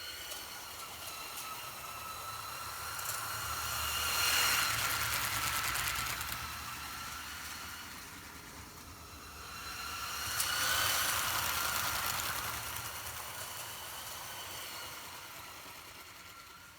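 LEGO model train running on plastic track, its two Power Functions L electric motors whining steadily through the bogie gearing, with wheels clicking and rattling. It passes close twice, getting louder and then fading, about four and a half seconds in and again about eleven seconds in.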